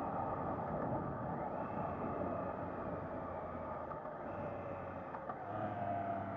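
Triumph Trident 660's three-cylinder engine running as the bike is ridden, under a steady rush of wind and road noise. The engine note shifts about five seconds in.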